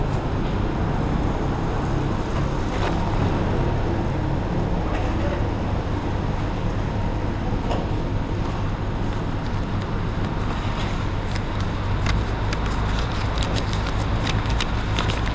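Steady low mechanical hum of a running motor with a faint constant whine, joined by many short sharp clicks and taps from about ten seconds in.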